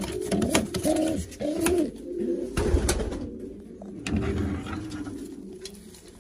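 Racing pigeons cooing repeatedly in a loft, the low bending coos overlapping, with a few sharp clicks in the first half.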